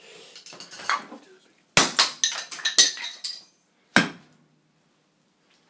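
Sharp knocks and a quick clatter of hard plastic on a concrete floor, as a small plastic transformer housing is struck open, then one more knock about two seconds later.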